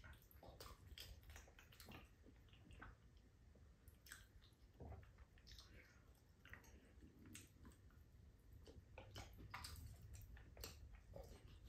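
Faint wet mouth sounds of someone eating soft, ripe persimmon: irregular chewing, lip smacks and small slurps.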